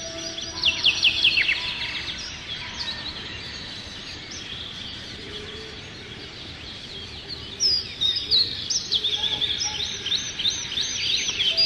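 Songbirds calling and chirping, with a burst of fast descending trills about a second in, a quieter stretch in the middle, then more chirps from about two-thirds of the way in, over a soft steady background hiss.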